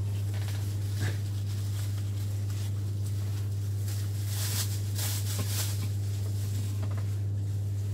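Steady low hum, with a few faint clicks and soft rustling over it.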